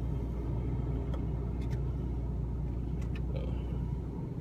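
Car engine idling, heard as a steady low rumble from inside the cabin, with a few light clicks; the rumble drops away about four seconds in.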